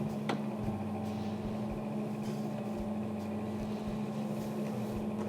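A steady low hum holding one pitch, with a single sharp click about a third of a second in and a few fainter ticks later.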